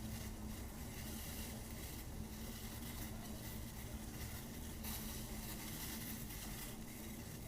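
Pot of water boiling down on the stove, a steady bubbling hiss with a low hum under it.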